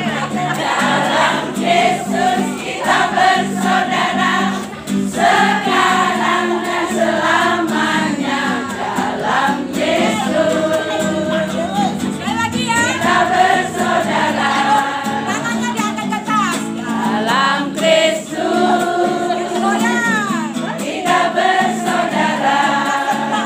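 A group of women's voices singing a song together, accompanied by a strummed acoustic guitar.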